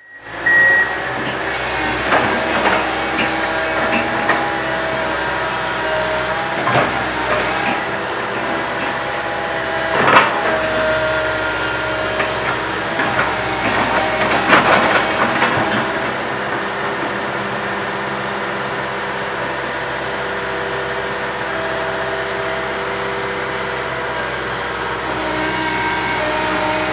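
Komatsu PC160 hydraulic excavator working: its diesel engine runs steadily under load while the hydraulic whine shifts up and down in pitch. A few sharp knocks ring out, the loudest about ten seconds in.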